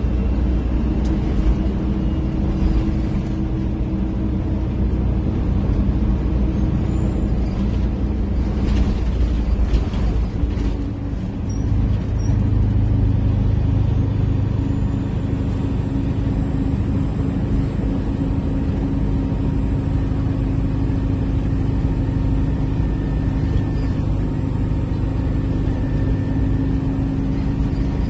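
Detroit Diesel engine of a Flxible Metro transit bus running without its exhaust tip, heard from the rear seats while the bus is underway: a steady loud drone. About ten seconds in the loudness dips briefly and the engine note changes, the deepest drone giving way to a higher hum, as with a transmission shift.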